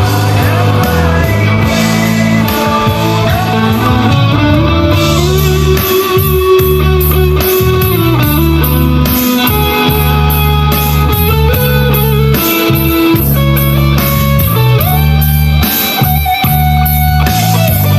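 Stratocaster-style electric guitar playing a melodic lead line with bent, gliding notes over a rock backing with sustained bass notes and a steady beat.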